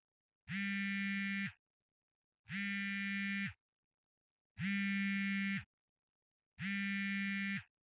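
An electronic buzzer tone sounds four times, each about a second long with a second of silence between.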